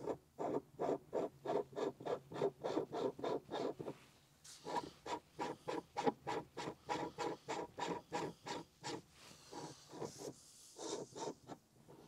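Perrin 1 lb weighted shift knob being twisted by hand onto the WRX's threaded shifter shaft. It rasps in quick short strokes, about four a second, with a brief pause about four seconds in and a few slower strokes near the end.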